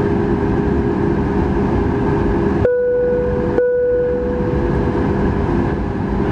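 Cabin sound of a Boeing 737 MAX 8 taxiing, heard from a window seat ahead of the wing, its CFM LEAP-1B engines at idle: a steady rumble with a low hum. About three seconds in the rumble drops out for about a second and a steady mid-pitched whine stands out, then the rumble returns and the whine fades.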